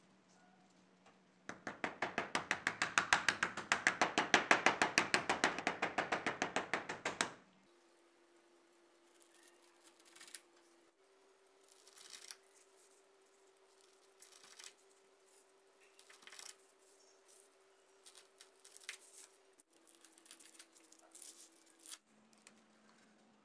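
Kitchen knife cutting lemongrass stalks on a bamboo cutting board: a quick run of rapid chops, about eight a second for some six seconds, then slower single cuts a second or two apart.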